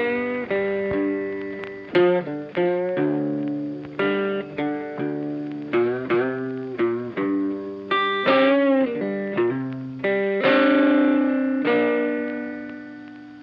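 Background music: a guitar with effects plays a slow melody of single plucked notes. A little past the middle one note bends in pitch, and a long final note rings out and fades near the end.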